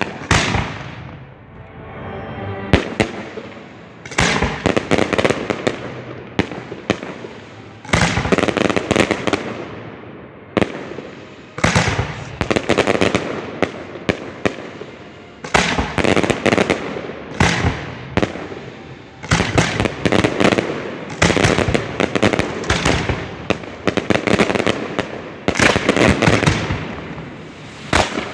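Professional display fireworks fired at close range: dense volleys of sharp mortar launches and shell bursts, each cluster lasting a second or two, with a new barrage every two to four seconds.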